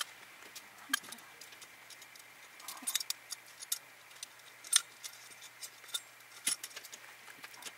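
Scattered metallic clicks and taps of a small folding backpacking gas stove being handled and fitted onto a gas canister, the loudest about five seconds in.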